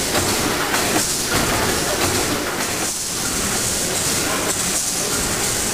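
Vertical triple-expansion steam pumping engine running: a steady hiss of steam and machinery with a slow beat about every two seconds.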